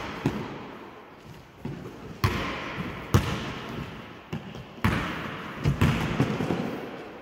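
Basketball bouncing on a hardwood gym floor during play: a series of sharp bounces at uneven intervals, each echoing in the large hall.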